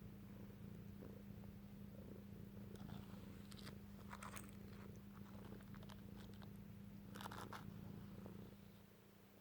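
Domestic cat purring steadily and quietly, with a few short rustling strokes of a brush through its fur around the middle and again later. The purr fades near the end.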